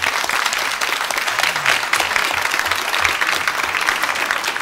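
Studio audience applauding: a dense, steady crackle of many hands clapping, with no even beat.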